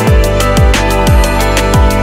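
Electronic background music with a fast, steady beat of deep kick drums that drop in pitch, over held synth tones.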